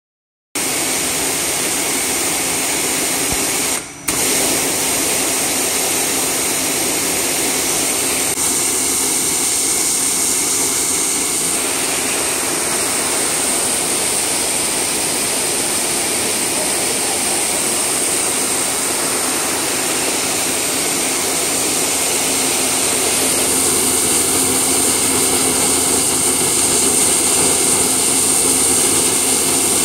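Dolphin high-pressure cleaner running with its lance open: a steady hiss of the high-pressure water jet over the running pump. The sound drops out for a moment about four seconds in and grows a little louder in the last quarter.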